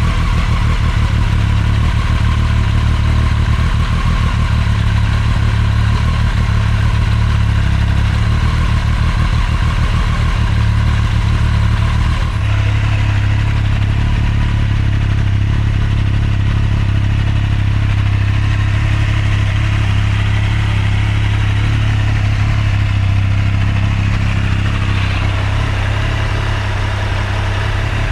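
Triumph Street Triple 765 R's inline three-cylinder engine running steadily through a newly fitted Akrapovic carbon-titanium slip-on exhaust. Its note shifts slightly about twelve seconds in, then holds steady again.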